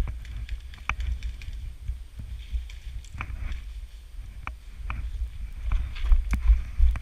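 Low rumble of wind and handling on a body-worn camera's microphone, growing louder near the end, with scattered sharp clicks and snaps.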